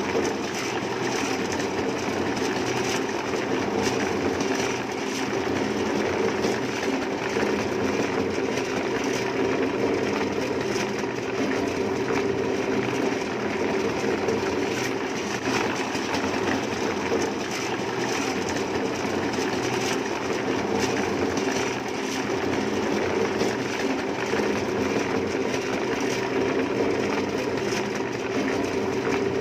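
A machine running steadily, a continuous mechanical drone that holds the same level throughout.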